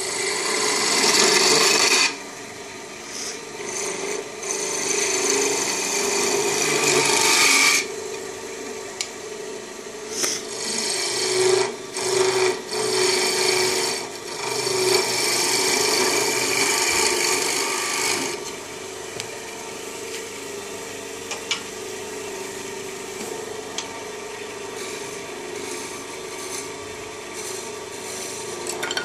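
Wood lathe running with a steady hum while a hand-held turning tool cuts into the spinning wooden spindle, a rasping, hissing scrape in several passes of a few seconds each. In about the last third the cutting stops and only the lathe runs.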